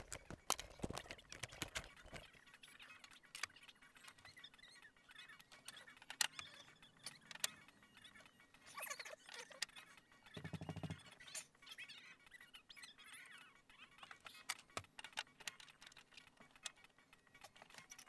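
Scattered faint clicks and metallic rattles of tools and car parts being handled during the seatbelt swap, with a brief low buzz about ten and a half seconds in.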